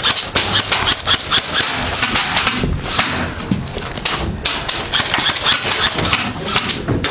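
Airsoft guns firing, a dense, uneven run of sharp clicks with several shots a second.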